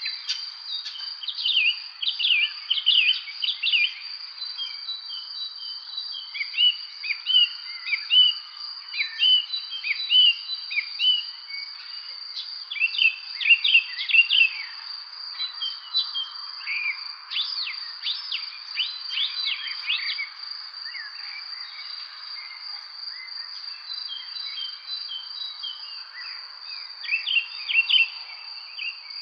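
Songbirds chirping and twittering in irregular bursts of short, quick notes over a steady, unbroken high-pitched insect trill, like crickets in a spring evening chorus.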